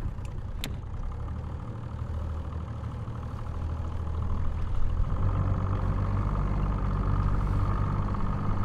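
Small motorboat's engine running steadily over wind and water noise, growing louder about halfway through. One sharp click about half a second in.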